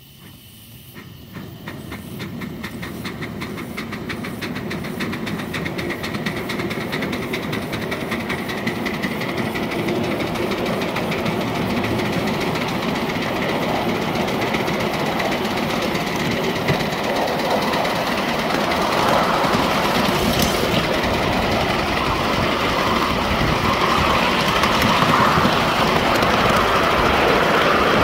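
A 5-inch gauge live-steam model of a GWR 15xx pannier tank locomotive pulling away and gathering speed, its rapid steam exhaust beats and wheels on the rails growing louder over the first few seconds.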